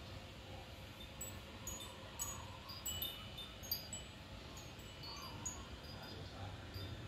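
Wind chime tinkling lightly: scattered short high ringing notes at a few repeating pitches, over a faint low background rumble.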